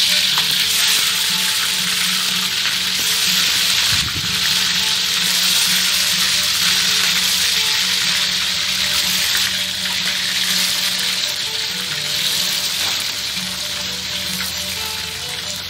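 Chicken pieces frying in hot oil in a wok: a loud, steady sizzle that eases slightly toward the end.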